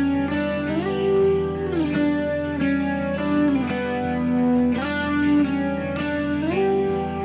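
Background music on guitar, plucked notes sliding up and down from one pitch to the next.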